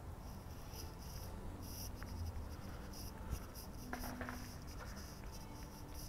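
Faint scuffing and rustling from a person walking while holding a handheld camera, over quiet outdoor ambience.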